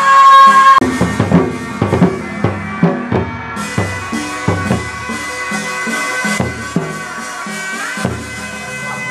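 Hát bội theatre ensemble playing: a sustained, wavering reed-horn melody over a run of drum strokes that thins out in the second half.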